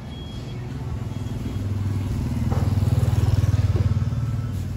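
A motorcycle passing close by on the street, its engine note growing louder to a peak about three seconds in, then fading.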